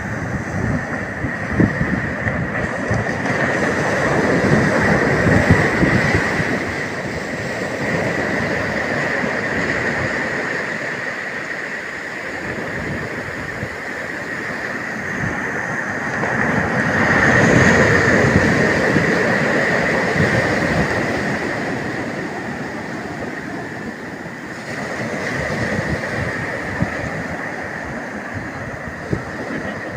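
Ocean surf breaking on a beach: a continuous rush of water that swells and falls back in long surges, loudest a few seconds in, again past the middle, and once more near the end.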